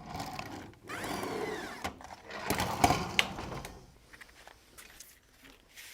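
Roller-blind fabric being trimmed along a straight edge: a cutter rasping through the fabric in three strokes of about a second each, then quieter handling noise.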